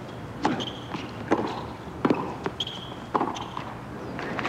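Tennis ball struck by rackets four times in a fast serve-and-volley point, a sharp hit about every second, with fainter ball bounces between and a couple of short shoe squeaks on the hard court.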